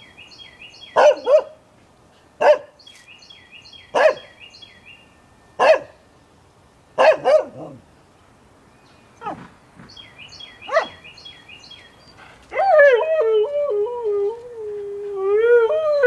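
Dogs barking in short sharp single and double barks about every one and a half seconds, then a husky howling: one long wavering howl, then a second one rising near the end.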